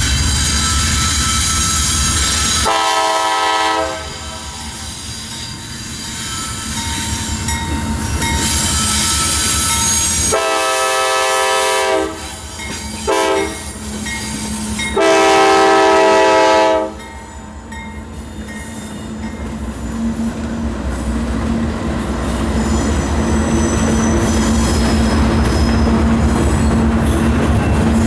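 Locomotive air horn sounding the grade-crossing signal: two long blasts, a short one and a final long one, the standard warning for a road crossing ahead. Under it runs the rumble and high wheel squeal of the moving train, which builds after the last blast.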